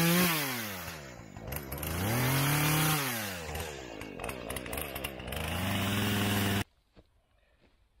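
Gasoline chainsaw engine revving high, dropping back toward idle, then revved up twice more before it stops abruptly near the end.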